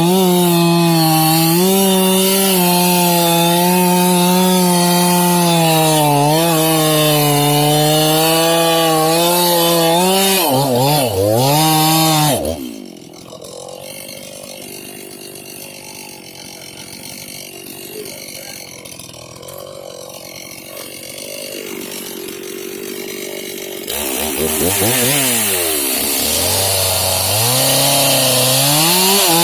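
Stihl MS 391 two-stroke chainsaw running at full throttle, cutting through pine, its pitch wavering under load. After about twelve seconds it drops back to a low idle. About twelve seconds later it revs up again and goes back into the cut.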